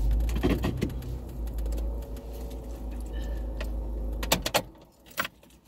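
Parked car's engine idling, a steady low rumble heard from inside the cabin. A few sharp clicks and knocks come about four seconds in, and the rumble then fades to near quiet.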